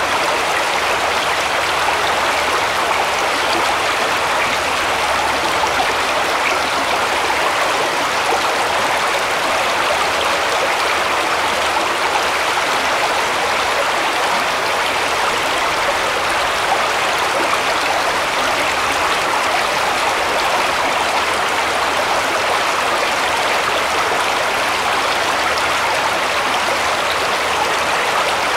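Shallow woodland brook running over stones, a steady babble and splash of water.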